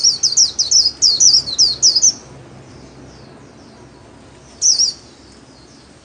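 White-eye singing its rapid, high twittering 'líu' song: about two seconds of quick down-slurred notes, then a short burst of the same notes after a pause.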